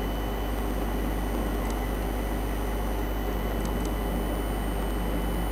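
Steady background hiss with a low electrical hum and several faint, steady high-pitched whines. A few faint clicks come about two seconds in and twice near four seconds in.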